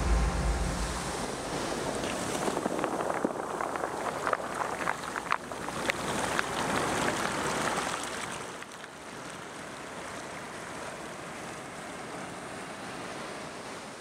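Surf washing onto a stony shore: a rushing hiss with short sharp splashes between about two and seven seconds in, settling into a softer, steady wash from about eight seconds.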